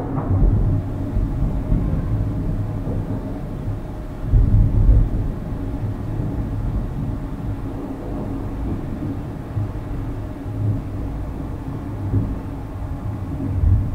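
Thunder rolling in a low continuous rumble, swelling louder about four seconds in and again near the end.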